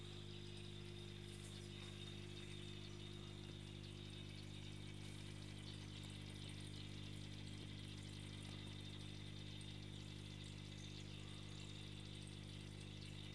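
Aquarium filter pump running: a faint, steady hum with water trickling and splashing.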